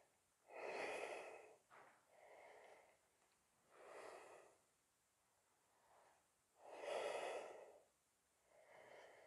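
A man breathing slowly and audibly while holding a yoga pose. There are about five breaths, with the loudest near the start and about seven seconds in.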